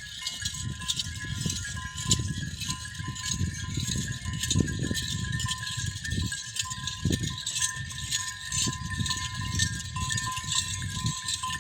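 Pasture ambience with livestock sounds over a constant low rumble and high hiss, with a steady thin high tone and faint chime-like notes running under it.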